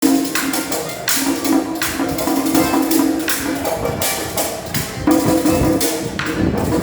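Music with a bright, jangling percussion beat over steady pitched instrument tones.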